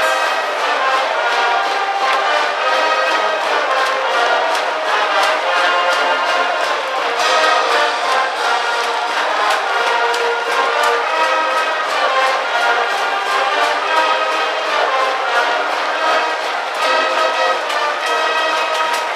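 High-school brass band playing a cheering song in the stadium stands: trumpets and trombones carry the tune over a steady drum beat.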